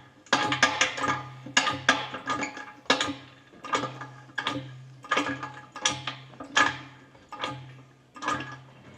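Background music: plucked, percussive notes over a recurring low bass note, with a steady beat.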